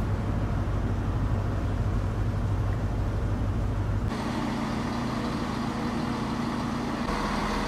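Class 170 Turbostar diesel multiple unit idling, a steady engine drone. About four seconds in the sound changes abruptly from a deep hum to a closer drone with a steadier pitch.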